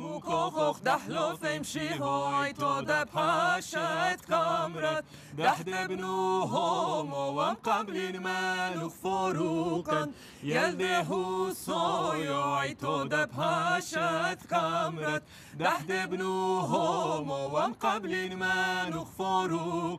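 A small mixed group of men's and women's voices singing a cappella, with a low held drone under the moving melody.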